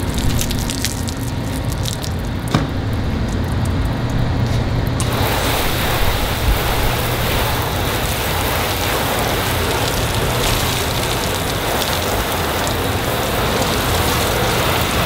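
Wet microfiber towel rubbing across a soapy car hood panel, with scattered drips and clicks. About five seconds in, a garden hose spray nozzle cuts in, and its spray hisses steadily as it spatters onto the paint, rinsing off the soap.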